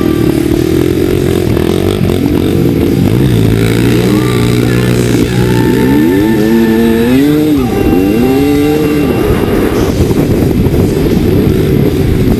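Dirt bike engine revving up and down as the bike pulls away and rides over sand, its pitch climbing and dropping repeatedly through the gears, over a steady lower engine note during the first half.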